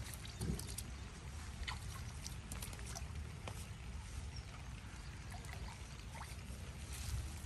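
Waterside outdoor ambience: a steady low rumble with faint trickling water and scattered light ticks.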